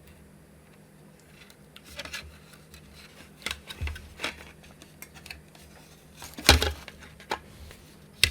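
Scattered clicks and knocks of small parts being handled and fitted into a 3D-printed plastic monitor case, the loudest knock about six and a half seconds in.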